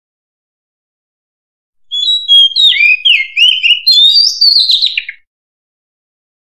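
Oriental magpie-robin singing one loud phrase of varied whistled notes and slurs, starting about two seconds in and lasting about three seconds. The phrase ends in a quick run of falling notes.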